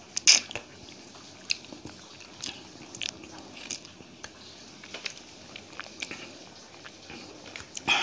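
A person chewing and biting food, with many short crisp clicks and crunches from the mouth, the loudest just after the start.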